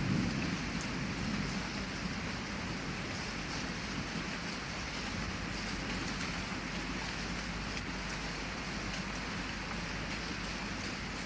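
Heavy rain falling steadily against a window, with the low rumble of a thunderclap dying away in the first second or two.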